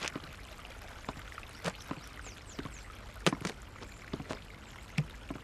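Courtyard fountain water splashing and trickling steadily, with a few scattered sharp taps and knocks, the loudest about three seconds in.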